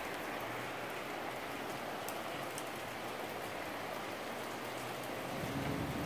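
Steady rain falling, an even hiss with a few faint drop ticks, and a low rumble building near the end.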